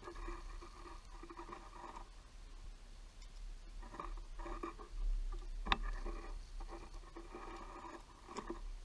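A squirrel scrabbling and rustling right at the microphone, in patches of scratchy noise, with two sharp knocks about two-thirds of the way through and near the end.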